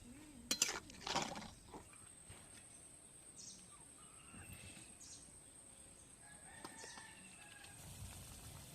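A rooster crowing faintly in the background. A few sharp clatters come in the first second or so.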